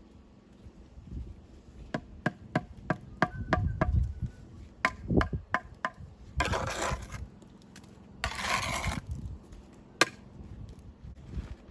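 Hand tools working stone and mortar: a quick series of sharp knocks with a short ring, then two rough scrapes and one last knock.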